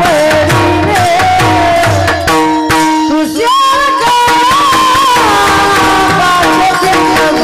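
Varkari bhajan: a male voice sings a panchapadi melody over steady held harmonium-like drone tones, with a hand drum and small cymbals keeping the beat.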